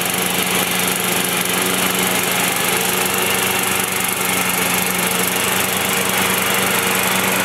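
Riding lawn mower's engine running steadily as the mower drives across the lawn.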